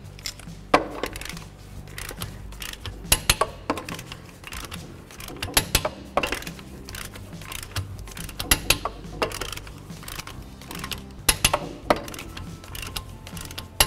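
Long ratchet-head torque wrench with a 21 mm socket tightening wheel lug nuts, making a short burst of metallic clicks every two to three seconds as it goes from nut to nut. Faint background music runs underneath.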